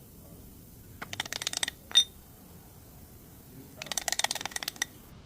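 Ratchet wrench clicking in two quick runs of rapid, even clicks, with a single sharp metallic clink that rings briefly in between.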